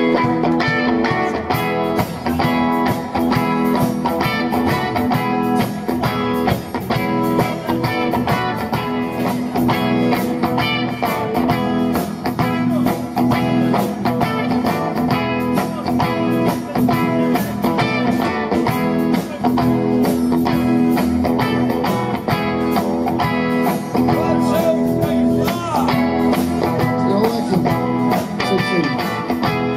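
Band playing guitar-led rock music, with electric and acoustic guitars.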